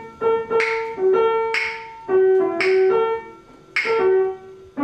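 Piano playing a slow melody while an African grey parrot whistles along to it. A sharp click comes about once a second, which is the parrot clicking with its mouth to keep time like a metronome.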